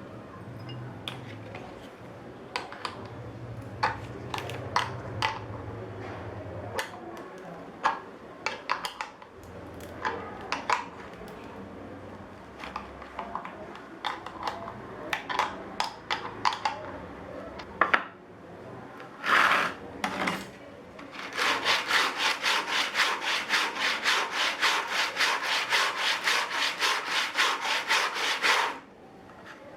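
Scattered clicks, knocks and short scrapes of the sanding block being handled. About 21 seconds in, sandpaper on a hand sanding block is rubbed back and forth over wood in fast, even strokes, about five a second, which stop suddenly near the end.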